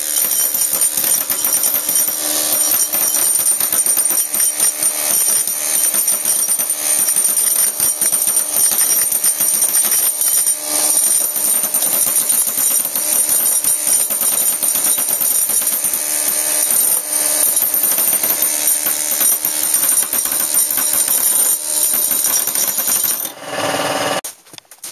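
Pneumatic air hammer driving a steel chisel into wood, a loud, fast continuous chatter of blows. It stops abruptly near the end.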